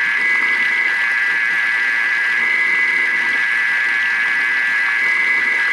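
Thermomix motor running at a steady speed with a high, even whine, its blades whisking oil into mayonnaise as it emulsifies.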